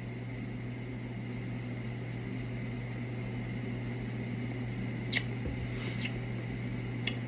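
A person drinking soda, with three faint brief gulping clicks in the second half, over a steady low hum.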